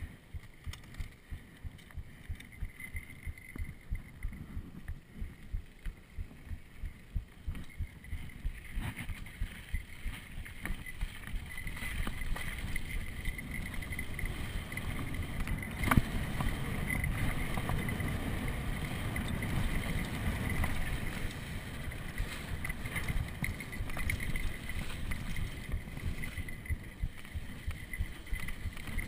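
Mountain bike riding fast down a dirt trail: tyres rumbling over the dirt and the bike rattling, with wind on the microphone. It gets louder as the bike picks up speed, with one sharp knock about halfway through.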